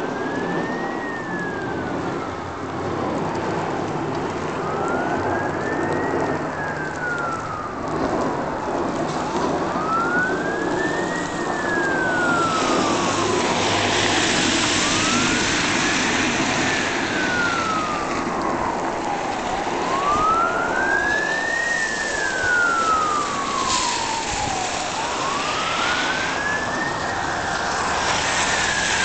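Fire truck's siren in wail mode, slowly rising and falling about every five seconds as the truck runs to an emergency call. A steady rushing noise grows louder about halfway through.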